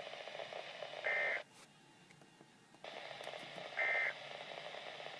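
Two short bursts of EAS/SAME digital data tone, about three seconds apart, each over a stretch of radio hiss. These are typical of the end-of-message code that closes an Emergency Alert System broadcast.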